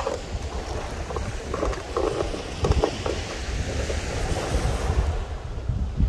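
Small waves breaking and washing up on a sandy shore, with wind buffeting the microphone in an uneven low rumble.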